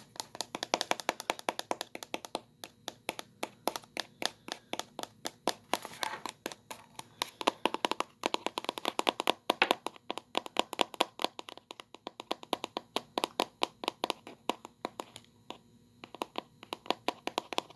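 Rapid clicking and tapping on a laptop: quick runs of sharp key or fingertip clicks, several a second, with brief pauses between runs.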